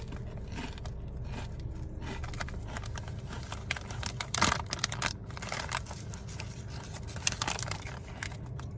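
Crinkling of a Ruffles potato chip bag being handled: a run of short rustles and crackles, the loudest about four and a half seconds in.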